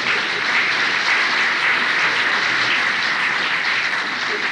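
Audience applause in a concert hall: many hands clapping in a dense, even patter that holds steady, heard on an old cassette recording.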